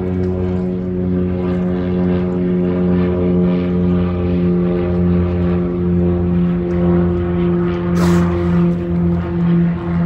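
Steady engine drone, one low even hum. About eight seconds in, a short hiss cuts across it.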